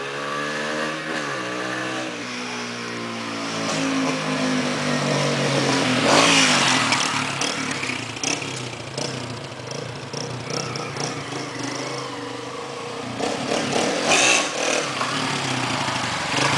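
Engine revved through an aftermarket 'roncar turbo' exhaust. Its note climbs in pitch over the first few seconds and peaks loudly about six seconds in. Scattered sharp crackles and pops follow as the revs drop and rise again, the crackly 'estraladinho' sound of this exhaust.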